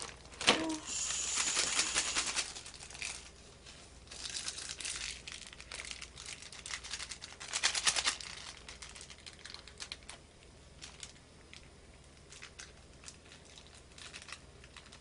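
Plastic instant-ramyeon packet crinkling and tearing as it is handled, loudest in the first couple of seconds and again around eight seconds in, then fainter rustles and small clicks as a small seasoning sachet is handled.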